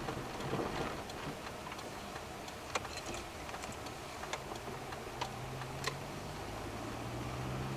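Car cabin noise recorded by a dashcam while driving: a steady road and engine hum with a few scattered sharp clicks. The low engine hum grows a little louder and higher from about five seconds in as the car speeds up along the road.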